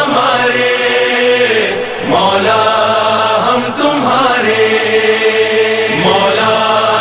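A voice chanting devotional phrases in long, drawn-out lines, about one every two seconds, each sliding up into a held note.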